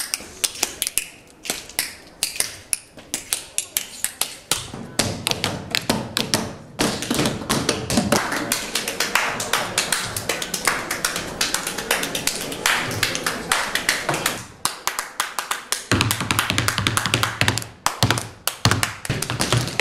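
Shoes tapping and stamping in quick percussive dance rhythms on hollow wooden boxes, a dense run of sharp clicks and knocks.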